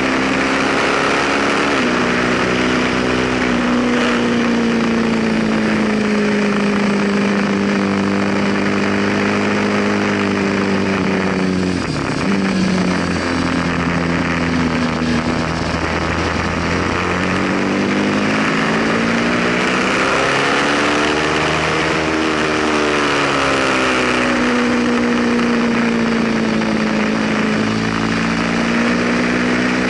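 Ducati sport bike's twin-cylinder engine under hard riding: its pitch steps down at gear changes, dips sharply about twelve seconds in as it slows for a corner, then rises and falls again as it accelerates and rolls off. A steady rush of wind noise sits under the engine.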